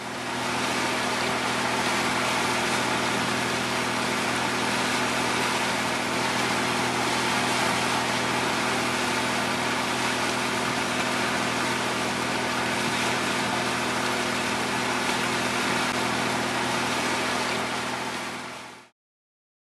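Engine of an FPB 64 motor yacht droning steadily under way at speed, over the rush of its wake, fading out near the end.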